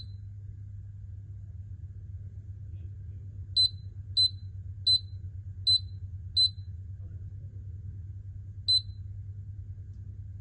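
Heat pump control panel beeping at each button press: six short, high beeps, five in quick succession about half a second apart, then one more two seconds later. A steady low hum runs underneath.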